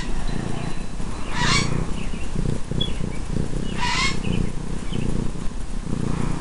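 A kitten purring close to the microphone, a steady low pulsing rumble, with a short chirp-like sound twice, about a second and a half in and again about four seconds in.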